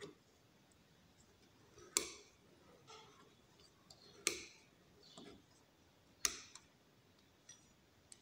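Pizza-cutter wheel cutting rolled-out yeast dough into a spiral strip on a wooden table: faint, with a sharp click about every two seconds, four in all, and a few softer ticks between.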